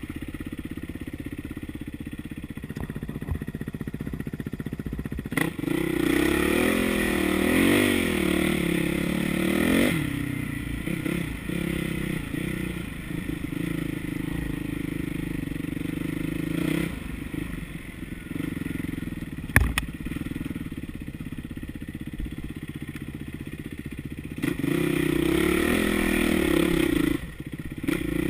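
Yamaha dirt bike engine running on a rocky trail, its pitch rising and falling as the throttle is worked, with chassis clatter and one sharp knock about two-thirds of the way through.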